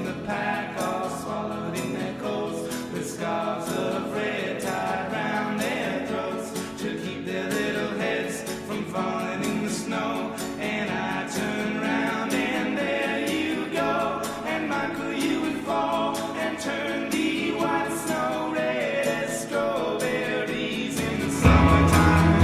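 Background music: a song with layered, choir-like vocals over a steady beat, which gets louder with a heavier bass section near the end.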